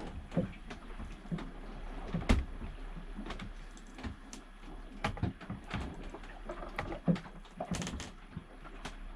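Scattered, irregular clicks and taps of a laptop's keys and trackpad or mouse buttons as a file is being saved.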